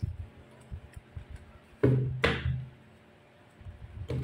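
Tarot card deck handled on a wooden table: a few light taps, then two louder knocks in quick succession about two seconds in, each with a short low ring.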